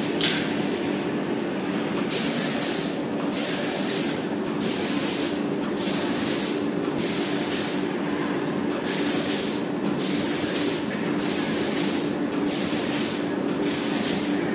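Robot arm's air spray gun spraying paint in repeated hissing blasts, each about a second long with short breaks between. A steady low hum runs underneath.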